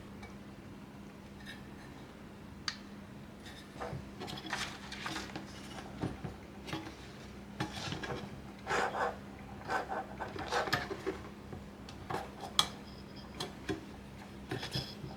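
Hands working on PC parts inside a small aluminium mini-ITX case, making irregular small clicks, clinks and rubbing, busiest in the middle of the stretch, over a steady low hum.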